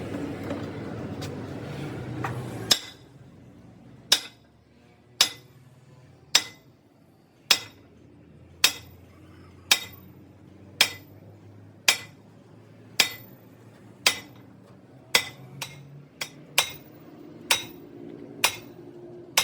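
Hammer striking metal at a steady pace of about one blow a second, each blow a sharp ringing clank. For the first few seconds a steady machine noise runs underneath and then cuts off suddenly.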